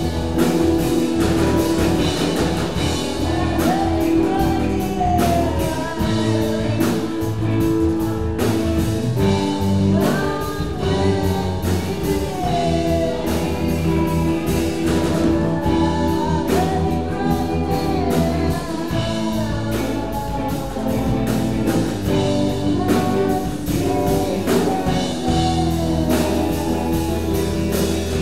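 Live band playing an improvised rock-blues jam: drum kit, bass guitar, electric guitars and keyboard, with a woman singing over it.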